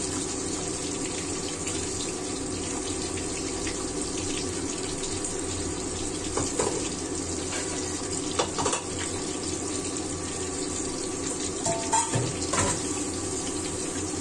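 Mullet pieces frying in hot oil in a wok, a steady sizzle. A few short clinks and knocks of cookware being handled come about six, eight and twelve seconds in.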